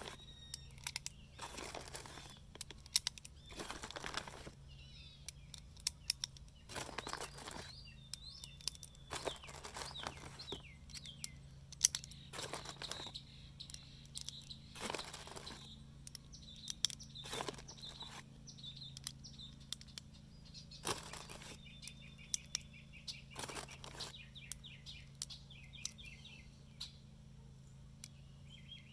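9mm cartridges clicking one at a time into a Shield Arms S15 steel magazine as it is loaded by hand to 15 rounds, at an irregular pace. Birds chirp at intervals in the background.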